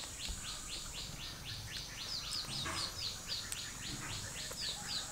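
A bird calling a fast, even series of short high chirps, about five a second, some of them falling in pitch, over a steady high hiss.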